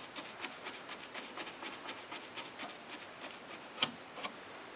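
Large round paintbrush dabbing paint onto a fascia board with punching strokes: a run of soft, scratchy taps, about four or five a second, with one sharper tap near the end.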